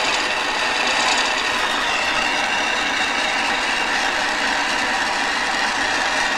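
Jeweller's gas torch burning with a steady hiss, its flame heating a silver ring's joint to melt and flow the solder.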